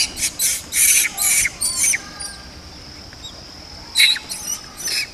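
Japanese macaques squealing: a quick run of about five short, shrill squeals, then three more about four seconds in.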